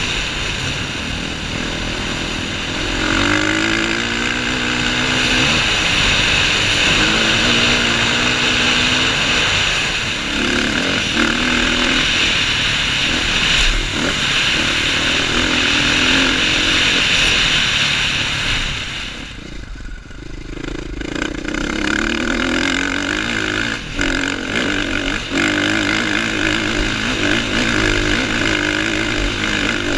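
2015 KTM 450 XC-F dirt bike's single-cylinder four-stroke engine being ridden under load, the revs rising and falling with the throttle. About two-thirds of the way through, the engine note drops away briefly, then picks up again.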